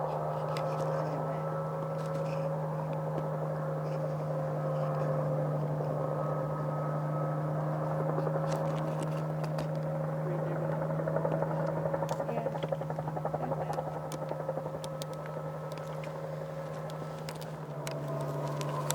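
A steady engine drone: a constant low hum with several steady higher tones above it.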